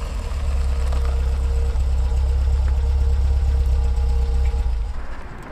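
A car engine idling, a steady low rumble that dies away near the end.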